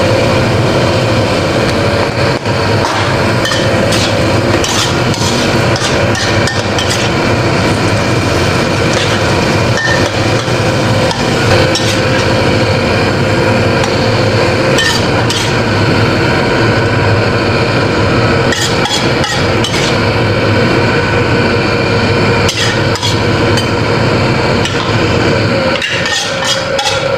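Metal spatula clanking and scraping against a steel wok as vegetables are stir-fried over a high gas flame, with a steady loud hiss of sizzling underneath.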